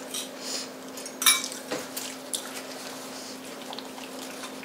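Table sounds of eating: forks and spoons clinking and scraping on ceramic bowls and plates, with wet chewing of noodles. There are a handful of short clinks, the loudest about a second in, over a steady low hum.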